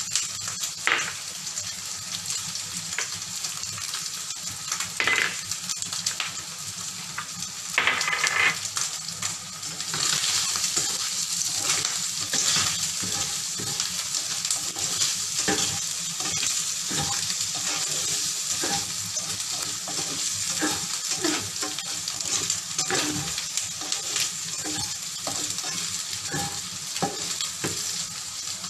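Cubed pork and ham luncheon meat and minced garlic sizzling in hot oil in a frying pan, with a spatula scraping and tapping the pan as it stirs them. The sizzle grows louder about ten seconds in.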